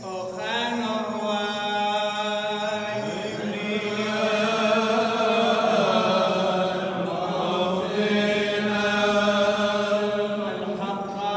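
Male voices chanting an Orthodox liturgical hymn in long, held, melismatic phrases.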